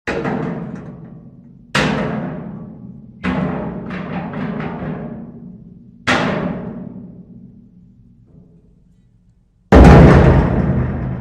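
Heavy metal object struck hard, again and again: five booming hits, each ringing away slowly, with a quick run of lighter knocks after the third. The last hit, near the end, is the loudest and deepest.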